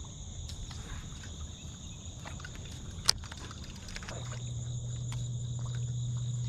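Steady high chirring of night insects, with a single sharp click about three seconds in and a low steady hum that comes in about a second later and holds.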